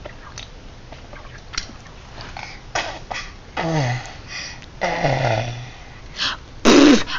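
A young child's wordless vocal noises: a few short voiced sounds that each slide down in pitch, with short breathy noises between them. The loudest one comes near the end.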